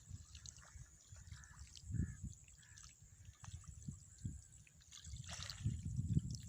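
Wind buffeting the microphone in uneven gusts that grow stronger near the end, over faint trickling water with a few small clicks and chirps.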